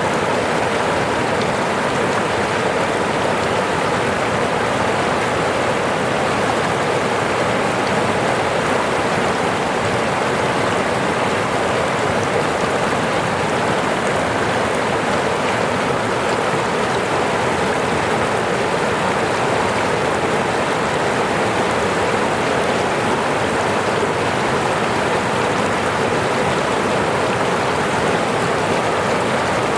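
Falling water running in a steady, even rush, as from a small waterfall.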